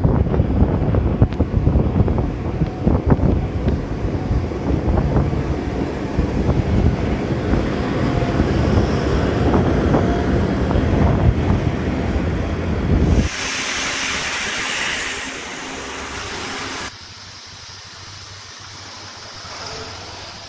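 Heavy construction machinery working: a loud, low diesel rumble with frequent knocks and clanks. About thirteen seconds in it cuts abruptly to a quieter steady hiss over a low hum, and a few seconds later cuts again to a fainter steady hum.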